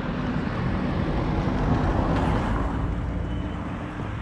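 Road traffic: a car passing, loudest about halfway through, over a low steady engine hum.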